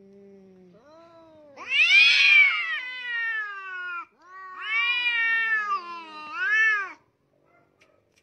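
Two domestic cats facing off: a low growl, then three long yowls that rise and fall in pitch, the last one shorter. This is the threatening caterwaul of cats squaring up to fight.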